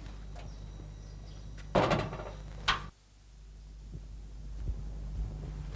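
Metal gate rattling as it is handled, followed by a sharp clank less than a second later.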